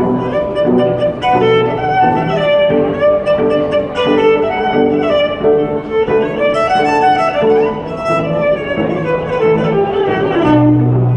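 Violin and cello playing a duet, the violin carrying a bowed melody over the cello's sustained accompaniment; near the end the cello drops to a low held note.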